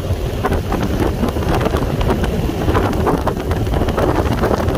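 Heavy wind buffeting the microphone of a moving motorcycle, over the bike running along a wet road.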